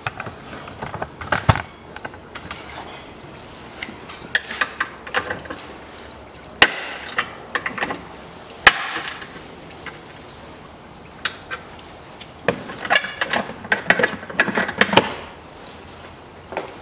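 Ratchet wrench clicking in short quick runs while undoing the nuts of a plastic air duct under the car, with a couple of sharp knocks along the way.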